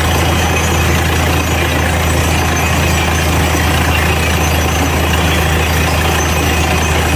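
Bore well drilling rig's engine running steadily, a loud constant low drone with no change in speed.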